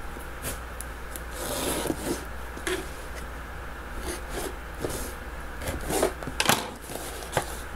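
Scissors cutting tape on a cardboard mailer box, then scraping, rustling and short clicks as the box and the tissue paper inside are handled.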